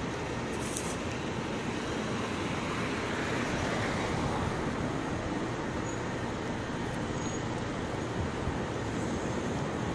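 Steady street noise: an even, low rumble with no distinct events.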